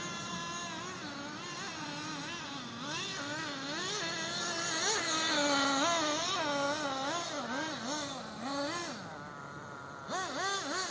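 Radio-controlled off-road buggy's motor whining, its pitch swinging up and down again and again as the throttle is worked. It goes quieter briefly near the end, then comes back in a few quick revs.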